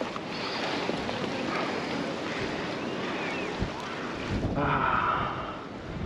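Wind buffeting the microphone over the steady wash of ocean surf under a fishing pier, with faint voices in the background.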